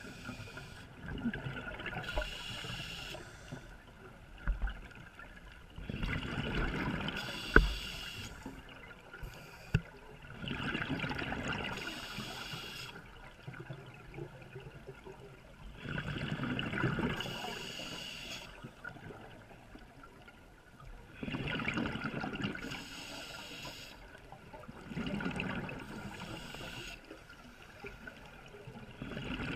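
Diver breathing underwater through a scuba regulator: a hissing inhale and then a bubbling exhale, about every four to five seconds. Two sharp clicks come near the middle.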